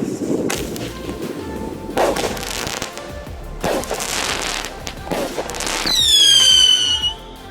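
Consumer mini firework cake firing: four sharp shots with hissing tails about every second and a half, then a loud whistling shot that falls in pitch and holds before cutting off near the end.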